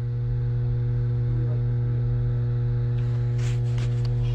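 Steady low electrical hum with a few evenly spaced overtones over a low rumble, from the dam's power plant. A brief faint rustle comes about three and a half seconds in.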